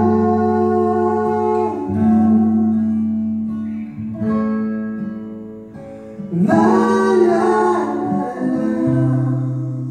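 Recorded acoustic music played back over a home hi-fi's large floor-standing loudspeakers: plucked acoustic guitar notes ringing and fading, with a singing voice entering on a new phrase about six and a half seconds in.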